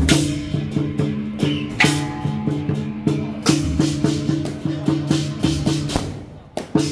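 Dragon-dance band music: drum and clashing hand cymbals, with loud cymbal crashes a few times, over a pitched melody that moves in steps.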